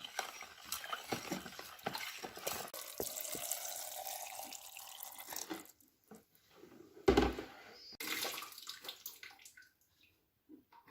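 Water running and splashing, with clicks and clatter, for about five and a half seconds. A loud thump comes about seven seconds in, then a shorter burst of splashing.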